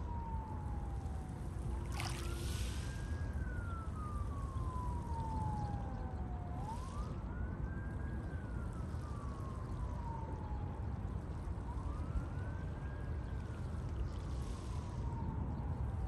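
An emergency-vehicle siren wailing, its pitch rising quickly and falling slowly in cycles of about five seconds, over the steady wash of sea waves.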